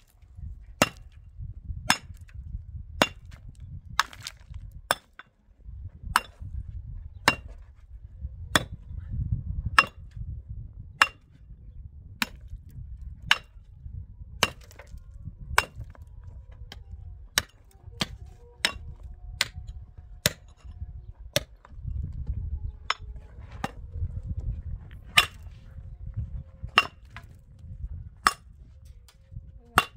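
Pickaxe striking hard, stony ground: a sharp metal-on-stone clink about once a second, stroke after stroke, over a low rumble.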